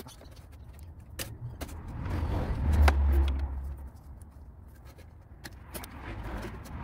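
Scattered sharp clicks and taps of a screwdriver and plastic parts being handled in a car's engine bay. A low rumble swells and fades about two to four seconds in, and another begins to rise near the end.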